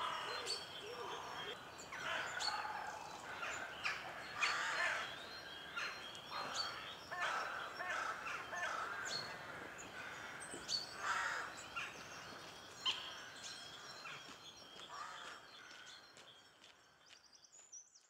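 Woodland songbirds singing and calling together, many short chirps and phrases overlapping, gradually fading out over the last several seconds.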